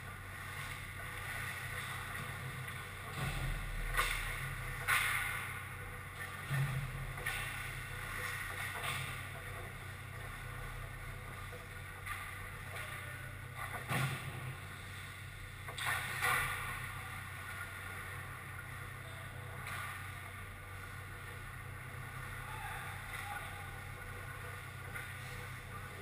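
Ice hockey rink ambience during play: a steady low hum and hiss with a few sharp knocks of sticks and puck scattered through it.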